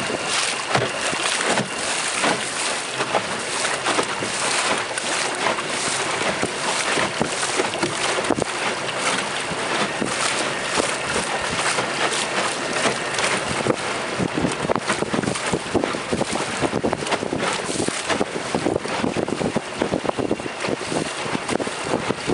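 Wind buffeting the microphone in irregular gusts over the splash and lap of choppy lake water against a small wooden skiff's hull.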